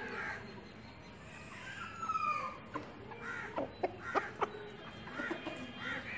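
Birds calling: a drawn-out call about two seconds in, then a quick run of short, sharp calls.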